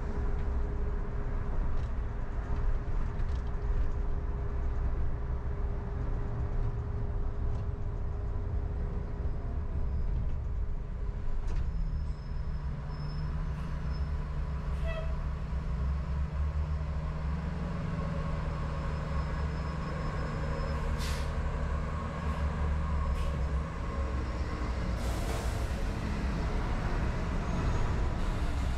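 Steady low rumble of a car driving in city traffic, with a city bus close alongside. Late on comes a short hiss of air, the bus's air brakes.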